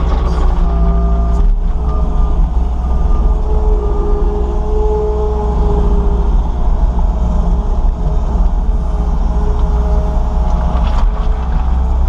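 New Holland L230 skid steer's diesel engine running steadily at working speed while the machine levels a load of stone, with held tones that shift in pitch now and then.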